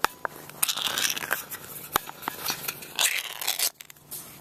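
Crinkling, rustling handling noises with scattered sharp clicks and taps; the loudest rustle comes about three seconds in.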